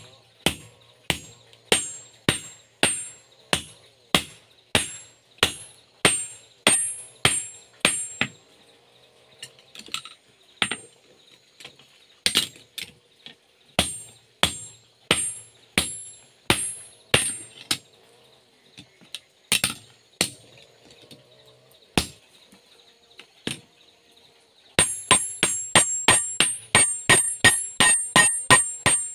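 Hand hammer striking red-hot steel on an improvised anvil, an old sledgehammer head, while forging a spade blade. Each blow is sharp with a high metallic ring, at a steady pace of about two a second at first, with gaps in the middle. Near the end the blows come faster, about three a second.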